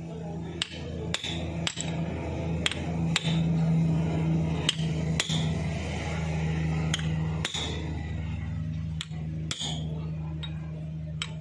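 A hammer tapping the new rear crankshaft main seal of a Mahindra 265 DI tractor engine into its housing. About a dozen sharp metallic taps at uneven intervals, often in quick pairs, each with a brief ring, over a steady low hum.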